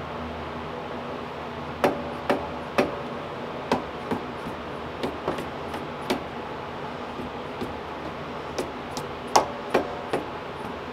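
Soft-faced mallet tapping a Brembo brake caliper during a brake bleed: about fourteen irregular knocks starting about two seconds in, some with a short ring. Tapping the caliper like this shakes loose trapped air bubbles so they flush out through the bleeder.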